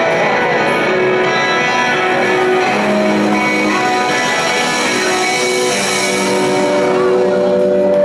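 A rock band playing live at concert volume, electric guitars ringing out sustained notes over the bass.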